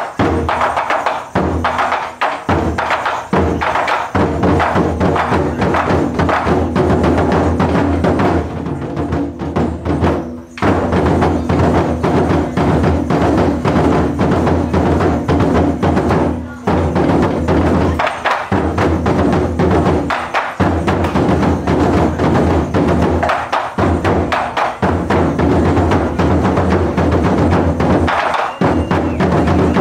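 Japanese taiko drums played as an ensemble: a dense run of rapid drum strokes with sharp, clicking accents, broken by a few short breaks.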